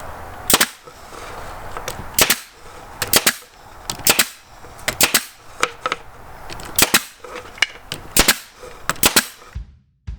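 Brad nailer firing 5/8 inch brad nails through 1/4 inch plywood trim into 1/2 inch plywood cabinet lids: a string of sharp shots, many in quick pairs, a second or so apart. They stop abruptly near the end.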